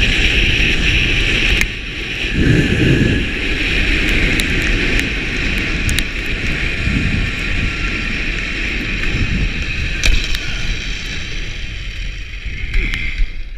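Zip-wire trolley running fast along its steel cable: a steady whirring hiss mixed with wind rushing over the microphone, with one sharp click about ten seconds in. The sound eases off toward the end as the trolley slows into the landing.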